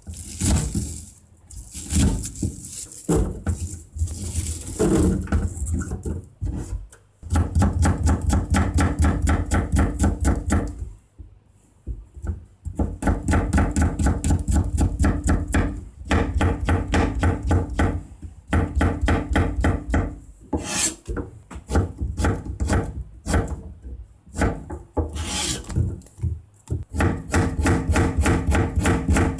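Kitchen knife chopping vegetables (turnip stems, garlic cloves, carrot) against a plastic cutting board: rapid, even strokes in long runs, with slower, scattered cuts in the first few seconds and a brief pause about eleven seconds in.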